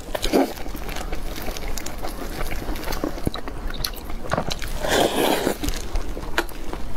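Close-miked mouth sounds of a person biting and chewing soft bread dipped in milk, with many small clicks and a louder noisy stretch about five seconds in.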